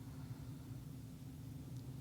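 Quiet room tone: a faint steady low hum and hiss, with no distinct sounds.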